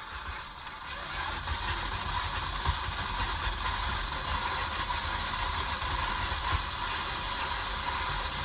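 Electric stand mixer running on medium-high, its flat beater creaming butter and sugar in a steel bowl; the motor gets louder about a second in, then runs steadily.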